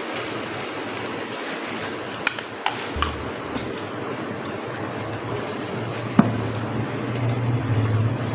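Spoon clicking against a bowl or pan a few times while egg mixture is spooned into bread slices on a greased griddle, over a steady low hiss. A low hum comes in about three seconds in.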